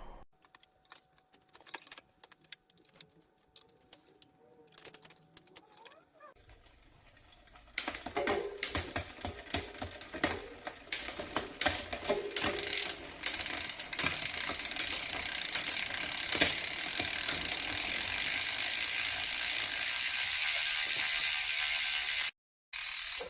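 A few scattered clicks and knocks, then a mountain bike's rear hub freewheel ratcheting: fast clicking that settles into a steady buzz as the wheel spins, and cuts off suddenly near the end.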